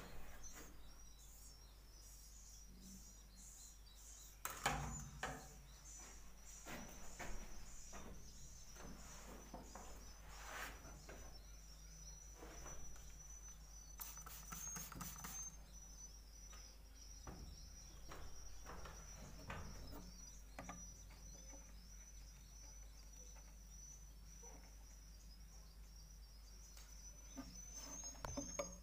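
Faint high twittering of swiftlets, with many short clicks scattered through it.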